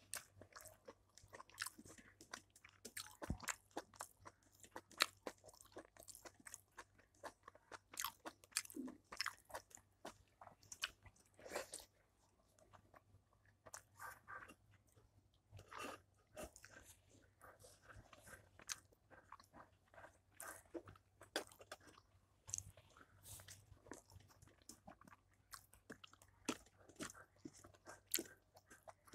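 A person chewing and crunching mouthfuls of rice and curry eaten by hand, with irregular wet smacks and crunches, several a second at times, broken by brief pauses.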